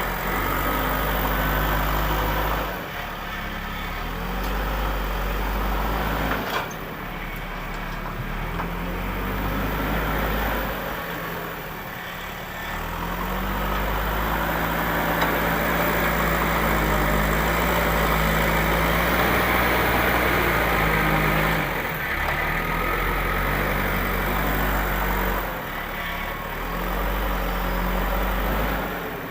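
Heavy diesel engine of construction machinery running, its speed rising and falling again and again as it works under load, loudest in the middle stretch.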